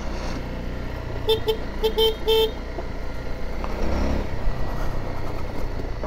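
Honda CRF250 Rally's single-cylinder engine running steadily at low speed, with a horn giving a quick series of about five short toots between one and two and a half seconds in.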